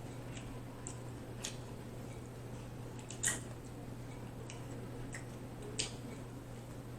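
A man chewing and biting into steak tacos: a few soft, wet smacking clicks, the loudest about three seconds in and another near six seconds, over a steady low hum.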